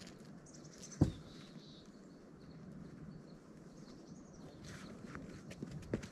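Faint outdoor ambience with a few bird chirps and one sharp knock about a second in. From about five seconds in come a run of small scuffs and taps: climbing shoes and hands on the rock as the climber tops out the boulder.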